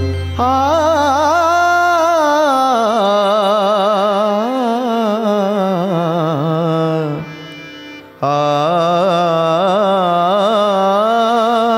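Indian classical dance music: a held melodic line with a wavering, ornamented pitch over a low tone that fades out. The music thins out and breaks off about seven seconds in, and a similar melodic line starts again suddenly about a second later.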